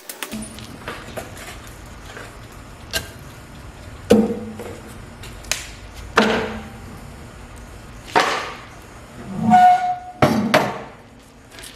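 Irregular knocks, thuds and short scrapes of hard objects being picked up and set down, about eight of them, a few with a brief ring, over a steady low background noise.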